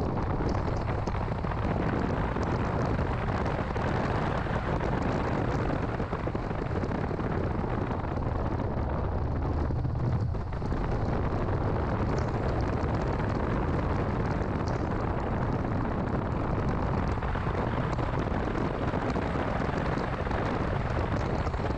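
A 2006 Mini Cooper S being driven: steady engine and road noise with scattered light ticks. The engine note swells and then briefly drops about ten seconds in.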